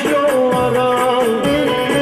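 Turkish folk music: an amplified bağlama plays the melody while a man sings into a microphone, over a beat of low drum strokes that fall in pitch about twice a second.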